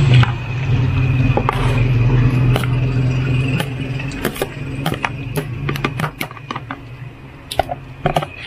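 Marinated pork pieces and sauce being scraped out of a basin into a metal wok, a spoon knocking and scraping against the basin and wok rim in a run of sharp clicks that grow more frequent in the second half. A low steady hum runs underneath and fades about halfway through.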